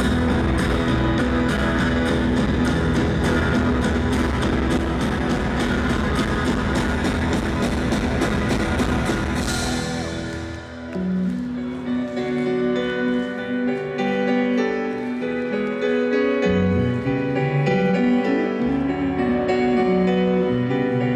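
Live rock band playing an instrumental passage, with drum kit keeping a steady beat under guitars. About halfway through, the drums and full band stop and a quieter, slower passage of sustained keyboard chords and bass notes follows.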